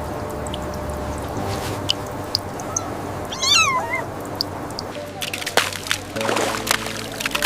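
A cat's single wavering meow a little under halfway in, over background music. A run of quick clicks and knocks follows near the end.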